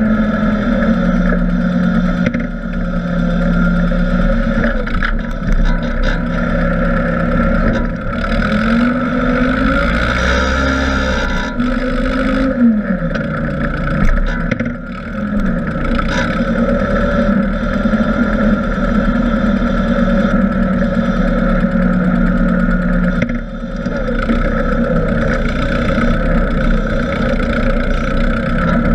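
Engine of a Hymas 470 tractor backhoe running steadily while its front loader works. The engine revs up and drops back several times, about eight to sixteen seconds in. A few short knocks are heard.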